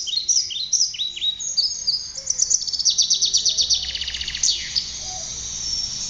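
Several birds chirping together: many short, high, falling chirps overlap throughout. A fast trill of rapidly repeated notes comes in the middle.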